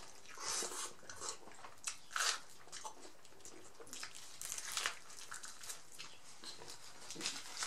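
Biting into and chewing a giant crunchy fried taco shell: irregular crisp crunches between quieter chewing, the sharpest a little over two seconds in.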